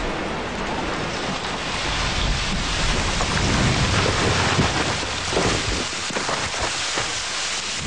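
Low rumble and dense hiss of the collapsing North Tower's debris and dust cloud sweeping over the street. The rumble fades about five and a half seconds in, leaving a thinner hiss with scattered small ticks.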